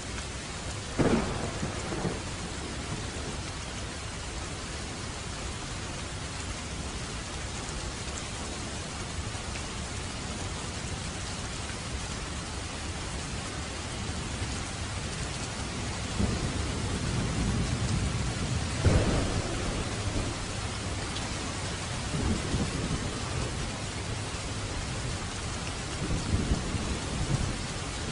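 Steady heavy rain falling, with thunder: a sharp crack about a second in, then a long rolling rumble that peaks about two-thirds of the way through and dies off in further low rumbles near the end.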